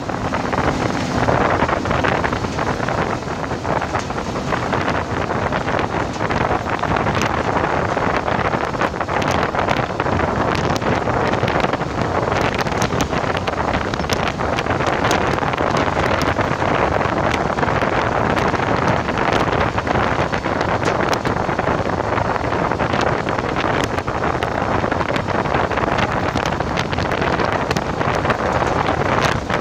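A vehicle driving steadily on a dirt and gravel road: a continuous rush of tyre and road noise with wind buffeting the microphone, dotted with frequent small clicks and rattles.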